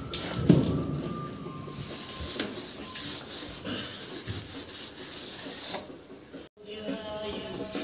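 Scraping and rubbing inside a steel concrete mixer pan as it is cleaned out by hand, with scattered knocks, the loudest about half a second in. Near the end the sound cuts off abruptly and music begins.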